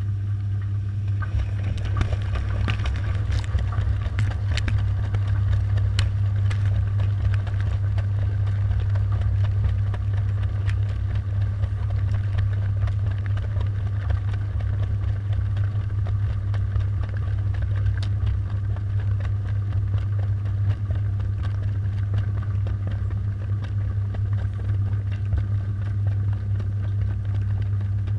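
Washing machine running, heard from inside the drum: a steady low motor hum with a fainter noisy wash of water and scattered small ticks and clicks, unbroken throughout.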